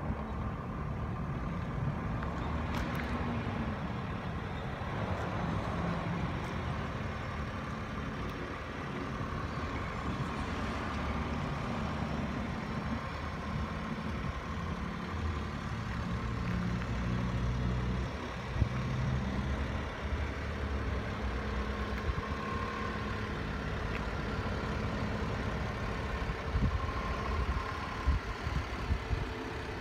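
Honda Acty HA4 kei truck's small three-cylinder engine idling steadily, with occasional crunches of footsteps on gravel.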